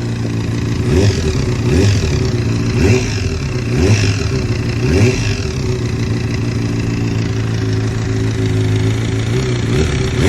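Honda CBR600RR PC40's inline-four engine running, blipped quickly about once a second for the first five seconds, then held at a steady idle, with another quick rev near the end. It carries a noise that the owner finds strange.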